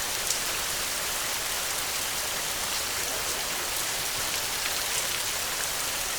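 Steady rain falling, an even dense hiss with a sharper drop tick now and then, one slightly louder about a third of a second in.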